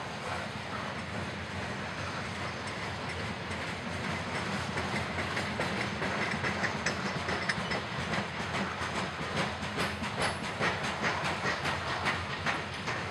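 Loaded or empty coal hopper cars of a freight train rolling past, a steady rumble of wheels on rail. From about halfway through, a rhythmic clicking of the wheels sets in at roughly three clicks a second and grows more distinct toward the end.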